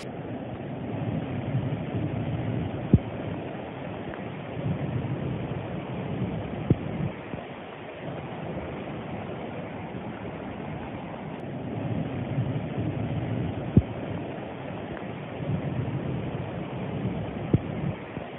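Flash-flood water rushing across a road, a steady muffled rush that swells and eases in waves, with wind buffeting the phone's microphone. Four sharp clicks stand out over it.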